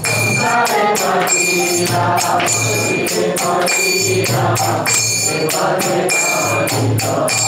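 Devotional kirtan: several voices sing a line back in Bengali in call-and-response, while small hand cymbals keep a fast, steady beat of about three to four strikes a second.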